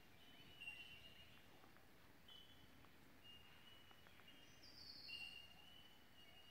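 Faint forest birdsong: several short whistled notes at much the same pitch, and a couple of higher falling notes, one about a second in and one near the end.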